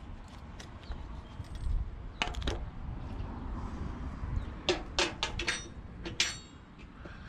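Metal scrap clanking and rattling as pieces are handled and shifted in a junk pile: a run of sharp knocks and rattles, the last about six seconds in with a brief metallic ring, over a low rumble.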